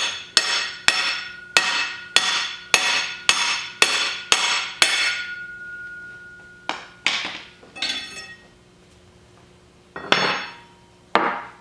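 Hammer tapping on a steel drive bar that pushes a socket against a new inner tube seal, driving the seal into the axle tube of a Dana solid front axle housing. About ten ringing metallic strikes come roughly twice a second, then after a pause a few scattered taps and two more knocks near the end, by which point the seal is pressed in.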